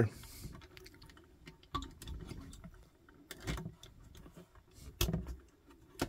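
Faint handling clicks as two ground wires are pushed into a Wago lever-nut connector inside a metal electrical box and its levers are snapped shut. The sharpest click comes about five seconds in.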